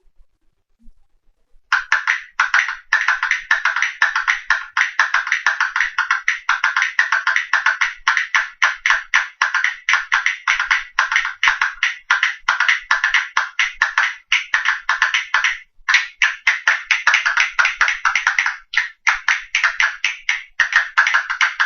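Castanets played in rapid runs of sharp wooden clicks, a series of different strokes and patterns, starting about two seconds in and broken by a couple of short pauses.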